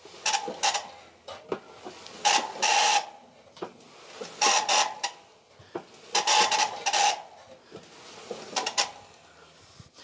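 Simpson/Electrolux/Westinghouse clothes dryer turned over by hand, its drum driving the motor through the belt, giving a harsh rasping scrape with each stroke: five or six strokes, each under a second, every second or two. It is the unusual noise that persists after the rework, which the owner later traces to worn bearings in the drive motor.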